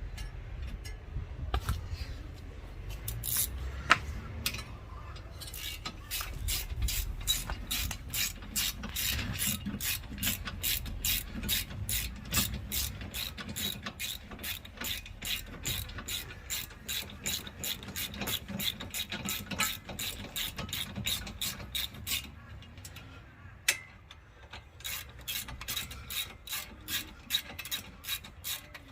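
Socket ratchet clicking rapidly in long runs as the front brake caliper bolts are wound in, with a short pause about two-thirds of the way through. Before the clicking starts there are a few knocks and some low handling noise.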